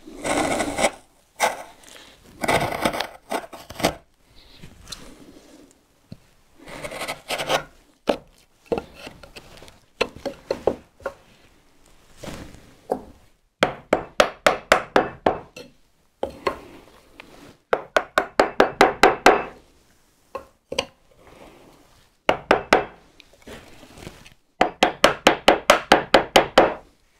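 Wood chisel paring a tenon: several short scraping strokes as it shaves the wood, then three runs of rapid light taps, about six a second, on the chisel handle, driving it down gently to keep control of the cut.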